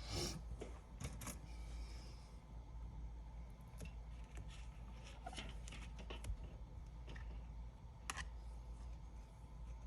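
Scattered light clicks and scrapes of small tools and parts being handled while an iPad 10 is taken apart, over a low steady hum.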